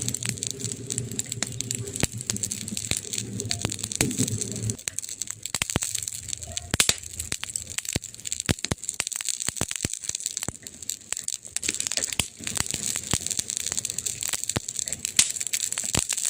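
Wood fire in a fireplace crackling, with sharp snaps and pops at irregular intervals over a steady hiss. A low hum sits underneath for the first four seconds or so and cuts off suddenly.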